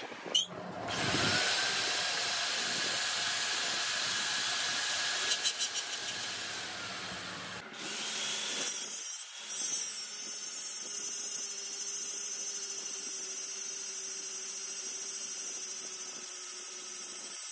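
An electric power tool's motor spins up, runs steadily for several seconds and winds down. After a sudden cut, a machine runs steadily with a low hum and a high hiss.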